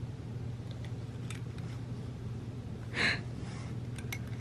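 Slicker brush with metal pins rubbing through a cat's fur as he pushes his face against it: a few faint scratchy ticks and one short, louder rasp about three seconds in, over a steady low hum.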